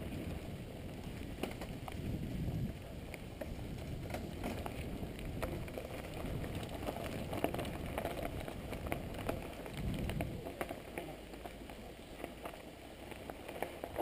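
Mountain bike tyres rolling over a leaf-strewn dirt forest trail, with leaves and grit crackling under the wheels and frequent small clicks and rattles of the bike.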